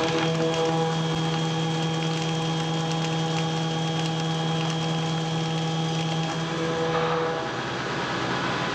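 CNC milling machine's face mill cutting across an aluminium block, a steady pitched cutting tone with fine ticking that stops about seven seconds in, leaving a machine hiss.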